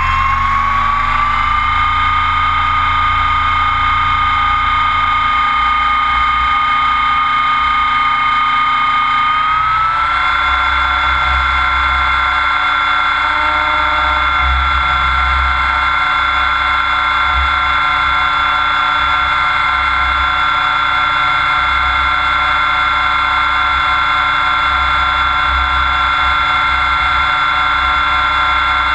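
Electric Logo 600SX RC helicopter's motor and rotor whining, heard from a camera mounted on the frame. The pitch rises over the first couple of seconds as the rotor spools up, holds steady, then steps up slightly about ten seconds in and stays level, with an uneven low buffeting underneath.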